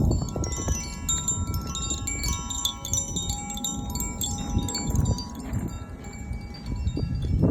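Zaphir tuned wind chime ringing: the clapper strikes its tuned rods again and again, leaving many bright, overlapping tones that hang and fade, over a low rumble.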